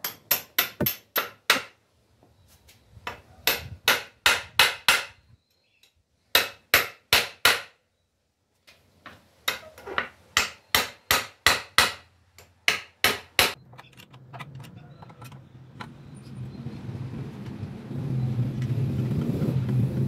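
Hammer striking the wooden bench frame in quick runs of blows, about four or five a second, with short pauses between runs. From about 14 seconds in, a vehicle's engine and tyre noise rises steadily and is loudest near the end.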